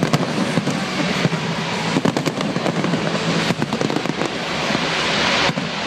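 Fireworks display going off: many sharp cracks and bangs in quick succession over a continuous rushing hiss and rumble, the cracks thinning out near the end.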